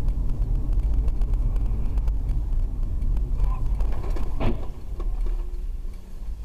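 Steady low road and engine rumble of a moving car, as picked up by a dashcam inside it, with a short sharp sound about four and a half seconds in as another car swerves across the road ahead.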